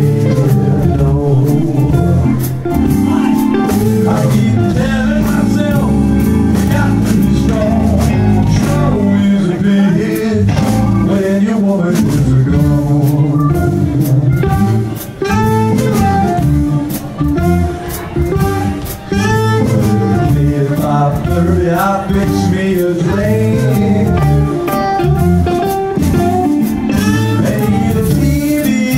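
A live blues band playing a slow blues number, with electric guitar, bass, drums and saxophone.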